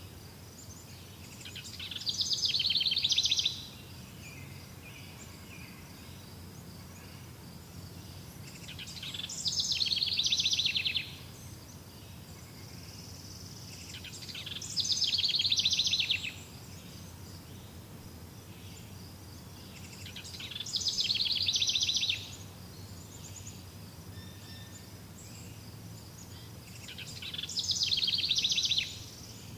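An animal giving a dry, rapid high trill about two seconds long, five times at roughly six-second intervals; each trill swells and then stops abruptly. Under it runs a steady low background hum.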